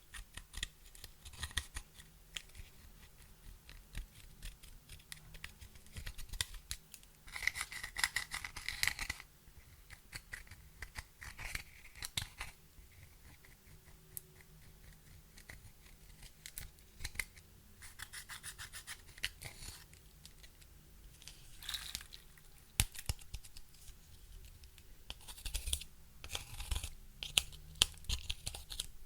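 Clear slime being worked by hand with makeup and glitter mixed in: a steady run of small sticky clicks and pops, broken by several short crackly bursts.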